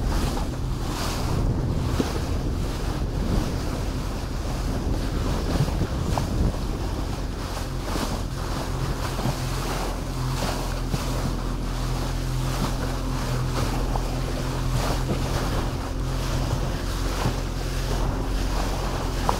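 Orkney Fastliner motorboat under way: a steady engine drone under the rush and splash of bow water along the hull, with wind buffeting the microphone in frequent short gusts.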